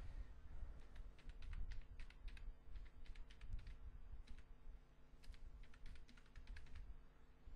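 Typing on a computer keyboard: three short runs of quick keystrokes with brief pauses between them, as login details are entered, over a faint steady low hum.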